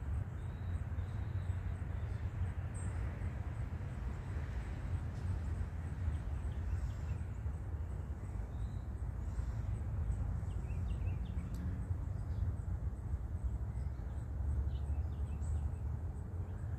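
Outdoor background: a steady low rumble, with faint, scattered bird chirps, more of them in the second half.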